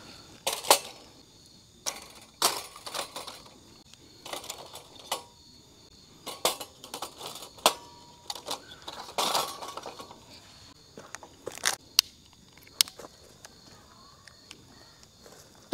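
Irregular handling noises of camping gear: scattered clinks, knocks and rustles, with a few sharp metallic ticks after the middle.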